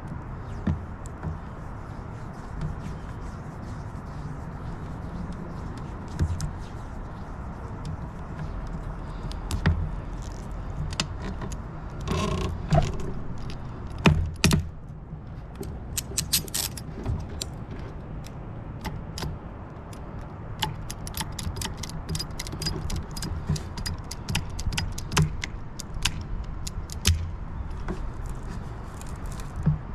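Ratcheting cable cutter working through thick aluminium service-drop conductors: a long series of sharp metallic clicks, ratchet strokes and handling noise, coming thickest in the second half, over a steady low background rumble.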